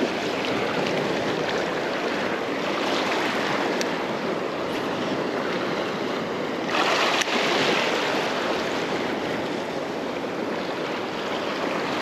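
Small waves washing and splashing over a shallow reef flat, with a louder surge of water a little past halfway.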